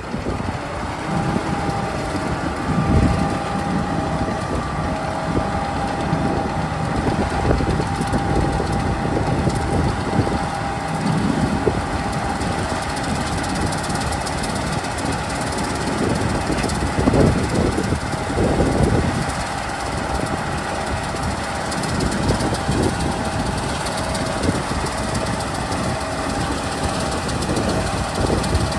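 Combine harvester engine running steadily, with the header and threshing drives turning, as bean cutting starts.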